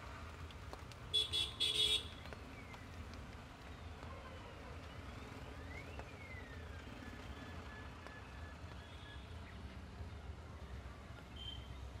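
A vehicle horn sounds three short honks about a second in, the loudest sound here. Under it runs a steady low rumble of road traffic.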